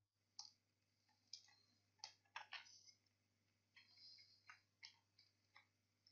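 Faint computer keyboard keystrokes: about ten light, irregularly spaced clicks as a word is typed.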